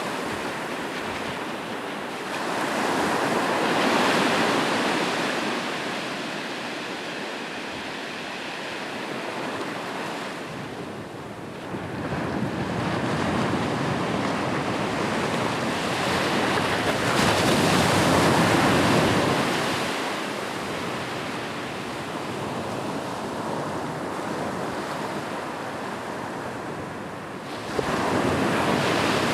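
Ocean surf: waves breaking on the shore, with a steady wash between them and three swells of louder crashing, the last starting abruptly near the end.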